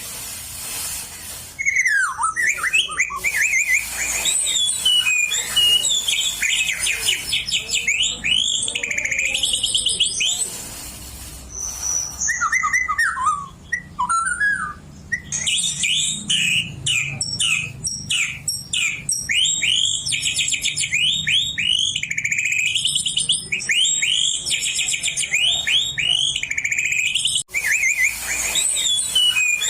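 An oriental magpie-robin singing loudly in long, varied runs of whistles, trills and quick rising and falling notes, with short pauses twice. Its song is filled with mimicked white-rumped shama phrases learned when it was young near a shama.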